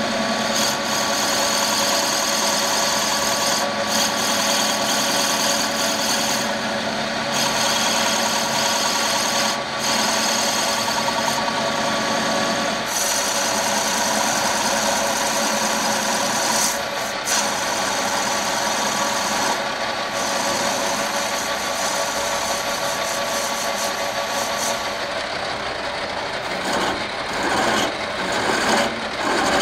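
Lathe running steadily while a carbide-insert turning tool cuts into a spinning kingwood handle blank. Near the end a file is stroked back and forth against the turning wood.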